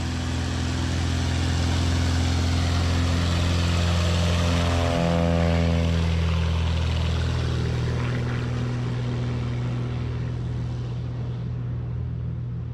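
Light single-engine tailwheel bush plane taking off at full power, engine and propeller growing louder as it runs toward and past, dropping in pitch as it goes by about five seconds in, then fading as it climbs away.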